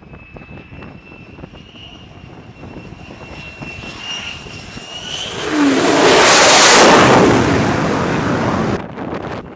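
F-35 Lightning II fighter jet on its landing on a carrier deck: the high whine of its turbofan grows steadily louder on approach. Then a loud roar of jet noise swells as it touches down and passes, and cuts off sharply near the end.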